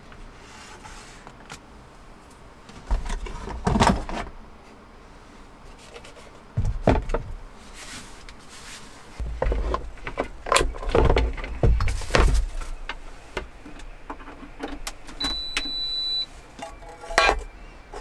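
Several bursts of clunks and knocks, as of things being handled and bumped, with a single electronic beep lasting about a second near the end.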